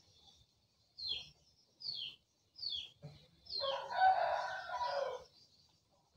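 A rooster crows once, a long call of nearly two seconds starting about three and a half seconds in. Before it, a small bird gives a few short, falling chirps about once a second.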